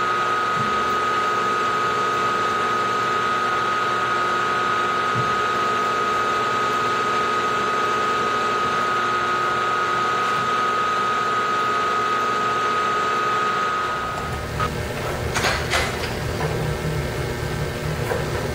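Milling machine spindle running with a steady whine while drilling a hole in an aluminium block. About fourteen seconds in the spindle stops, and a few sharp clicks and handling knocks follow as the hole is tapped by hand.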